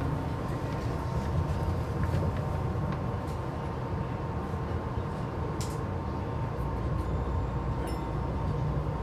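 Tama Toshi Monorail car running along its beam, heard from inside the car: a steady low rumble with a faint, even whine and a few light clicks.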